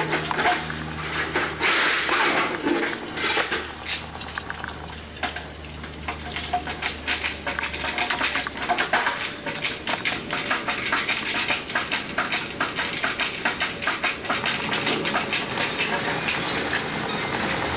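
Hand tools at work on an aircraft instrument panel on a workbench, with a low steady hum through the first half. From about eight seconds in comes a long run of quick, sharp clicks, several a second.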